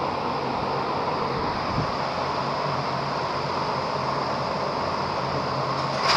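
Steady mechanical background noise: an even hiss with a faint low hum underneath. A clatter begins at the very end.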